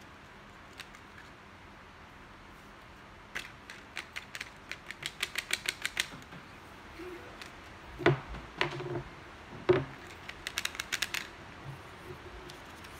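Handling of a folded paper cube and paper sheets on a wooden table: a run of quick, sharp clicks speeding up about three seconds in, then a few heavier knocks, and another brief burst of quick clicks near the end.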